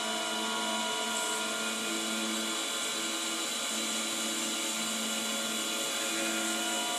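Electric potter's wheel running at a steady speed, its motor giving a constant whine with several steady tones over a hiss, while wet raku clay is centred and opened on the wheel head.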